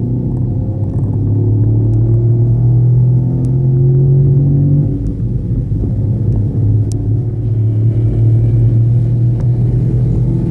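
Car engine running hard on a track lap: its note climbs slowly, drops about five seconds in, then climbs again.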